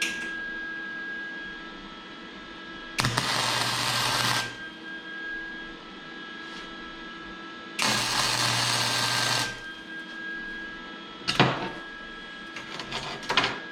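A steady electrical hum with two hissing bursts of about a second and a half each, then a sharp knock and a few quick clicks near the end.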